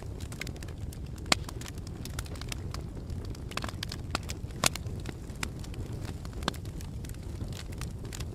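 Campfire crackling: wood burning with irregular sharp pops and snaps over a steady low rumble of flame. Two pops stand out louder, about a second in and about halfway through.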